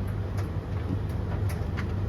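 Three tumble dryers, a Blomberg LTK310030W, a Russell Hobbs RH3VTD800 and a Hoover HLEC8TRGR-80, running together mid-cycle: a steady low hum and rumble of motors and turning drums, with a few irregular light clicks.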